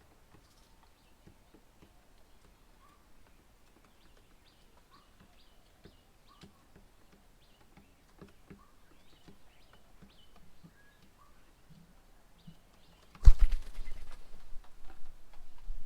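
Faint, scattered chirps from birds around a garden bird table. Near the end a sudden loud thump is followed by a few seconds of rumbling noise.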